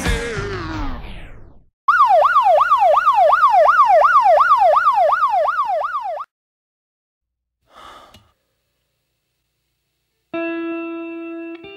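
A song fades out, then a siren-like yelp tone sweeps rapidly up and down, about three times a second, for about four seconds before cutting off. Near the end, sustained plucked guitar notes begin.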